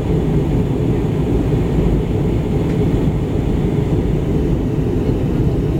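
Steady cabin noise of a jet airliner in flight, heard inside the cabin: an even, low rumble of engines and rushing air.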